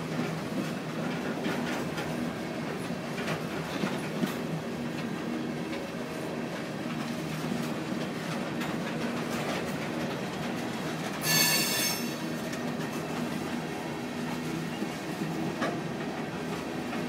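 Freight train of open-top hopper cars rolling past, a steady rumble with scattered clicks from the wheels. About two-thirds of the way through, a wheel gives a sharp, high squeal for about a second, the loudest sound.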